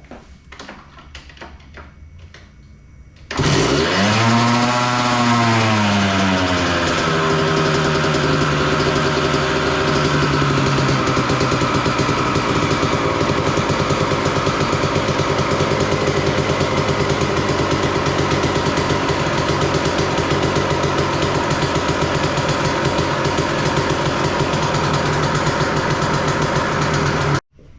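Kawasaki KX125's 125 cc single-cylinder two-stroke engine firing up about three seconds in, revving up and back down, then idling steadily until it cuts off suddenly near the end. It runs, but its carburetor still needs a little tweaking.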